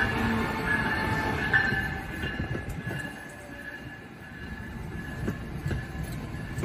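Amtrak passenger train, an ACS-64 electric locomotive and Amfleet coaches, rolling past close by with a rumble from wheels on rail and a steady thin high squeal. The sound drops off about two to three seconds in as the locomotive moves away and the coaches go by.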